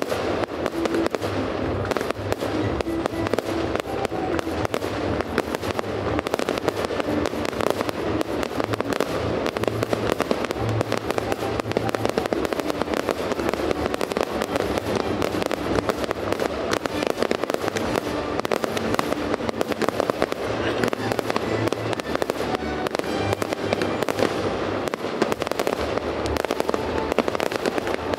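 A dense, continuous barrage of fireworks: aerial shells bursting and crackling in quick succession with no pause, over music playing along.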